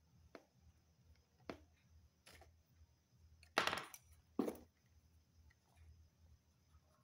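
Wooden colour pencils being handled as one is picked out of the set: a few light clicks, then two louder rattling clatters about three and a half and four and a half seconds in.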